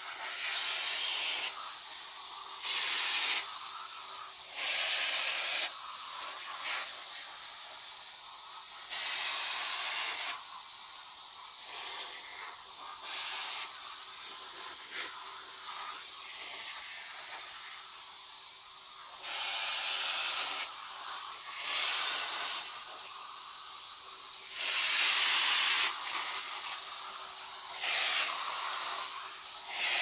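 Vacuum cleaner running with its nozzle worked over a cat's fur: a steady suction hiss over a faint motor hum, swelling into louder rushes of air lasting a second or so, about ten times.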